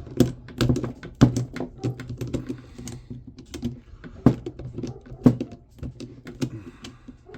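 Irregular clicks and knocks of hard plastic and metal as the parts inside a jump starter pack are handled, a wire inside being worked back and forth by hand.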